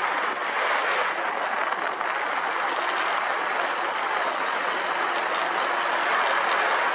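ATV running steadily while riding, its engine and ride noise an even, unbroken rush.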